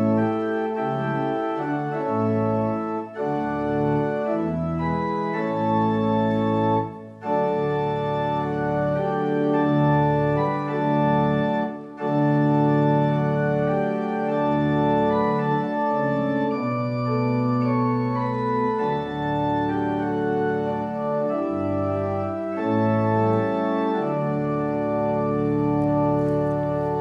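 Two-manual church organ played in sustained chords, with short breaks between phrases about 3, 7 and 12 seconds in.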